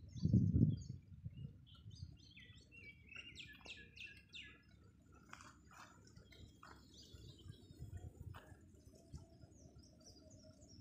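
Birds chirping and calling in quick runs of short, high notes, over a steady low rumble on the microphone that is loudest in the first second.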